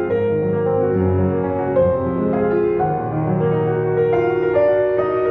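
Background piano music: slow, gentle held notes and chords.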